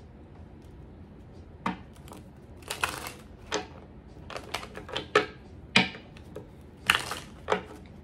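A deck of tarot cards being handled and shuffled on a table. After about a second and a half there are irregular sharp clicks and taps mixed with short riffling rustles.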